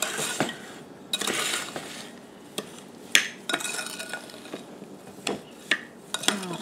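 A metal spoon stirring berries and sugar in a ceramic bowl: repeated scraping swishes with occasional clinks of the spoon against the bowl.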